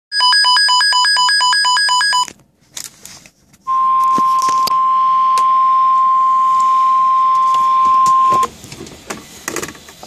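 Capello NOAA weather radio alerting: about two seconds of rapid, evenly pulsed beeping, then after a short pause with a few handling clicks, the NOAA Weather Radio warning alarm tone held steady for about five seconds, the signal that a warning, here a severe thunderstorm warning, is about to be broadcast.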